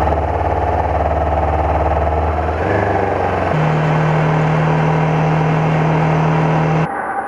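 Honda CB500X's parallel-twin engine running at low revs as the bike pulls away, then, after a cut about three and a half seconds in, a steady, higher engine note while riding along the road.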